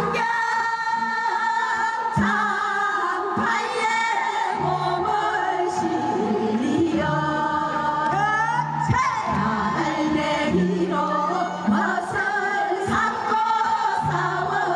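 A group of women singing a Gyeonggi minyo, a Korean folk song, together through microphones and a PA, with wavering held notes over a steady low accompaniment.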